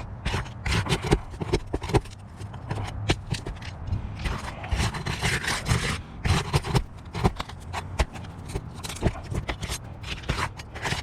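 Scraping, cracking and knocking as sealed asphalt roof shingles are pried up and their nails worked loose, the old shingles brittle and crumbling. There are many short sharp clicks and taps, with longer scrapes around the middle.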